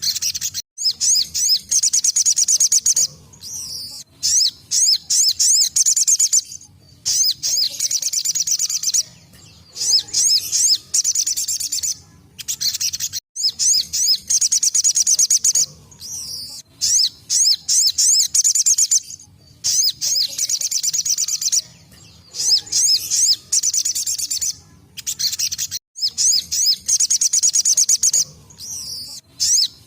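Sogon sunbird singing its rapid, high-pitched 'tembakan' song: fast trilled bursts of a second or two each, repeated again and again with short pauses between.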